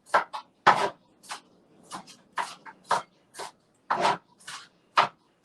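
A kitchen knife chopping an onion, about a dozen quick, uneven strokes at roughly two a second.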